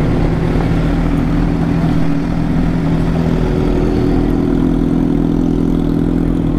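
Kawasaki Ninja H2's supercharged inline-four engine running steadily at low revs, an even note with no revving, heard close from on the bike as it creeps along at walking pace.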